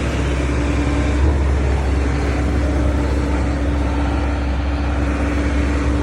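A vehicle engine running steadily: a constant low hum with a steady droning tone over it.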